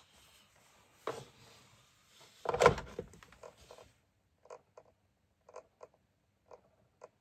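Two clunks as the LED moving head is handled and its power lead plugged in, then short ticks roughly once a second, some in quick pairs, from the powered fixture. These are the funny noises of a unit that will not power up, with a power-supply fault.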